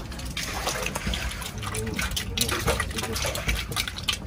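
Water splashing and gushing in uneven surges over a low steady rumble.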